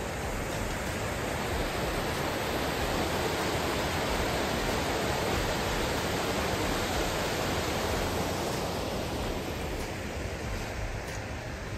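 Creek water rushing over rocks in the chasm below: a steady rushing noise that grows a little louder toward the middle and fades near the end.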